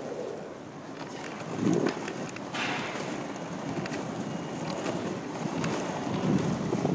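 Skateboard wheels rolling over pavement, a steady rumble, with a louder bump about two seconds in and a few light clicks near the end.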